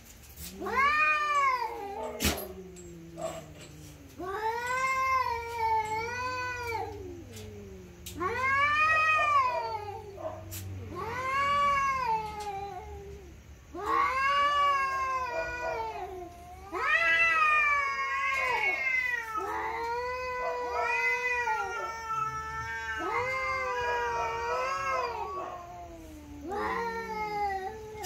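Two cats caterwauling at each other in a standoff: long, drawn-out yowls that rise and fall in pitch, coming one after another. In the second half they run together and overlap.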